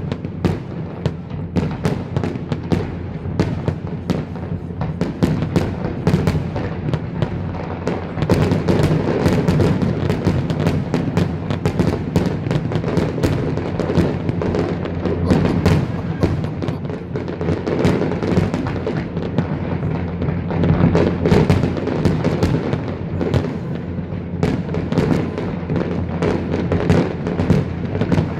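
Fireworks display with a dense, continuous barrage of bangs and crackles, over steady low tones.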